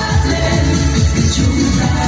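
Loud background music with a steady beat and a singing voice.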